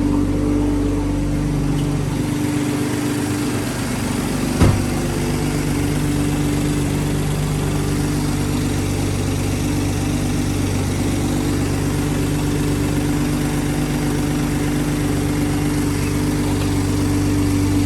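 Car engine idling steadily on its first run after a turbo install, exhausting through a catless downpipe. A single short knock sounds about four and a half seconds in.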